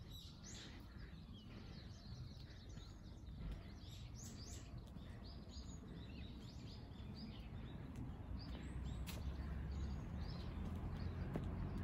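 Birds chirping, many short high calls one after another, over a low rumble that grows louder in the second half.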